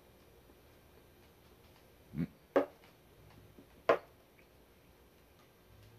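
Someone sipping chicken-and-daikon broth straight from a lacquered soup bowl. There are three short slurps between about two and four seconds in, with only quiet room noise around them.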